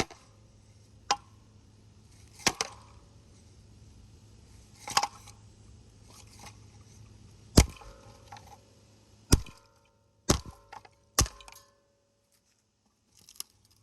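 Ceiling fan blades being broken and knocked about: about eight sharp cracks and knocks, irregularly spaced, the loudest a little past halfway.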